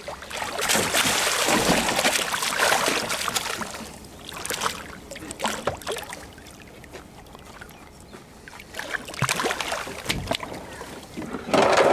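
Large wels catfish thrashing at the surface beside the boat, splashing the water in several bursts. A long bout comes early, shorter splashes follow, and the loudest splash comes just before the end.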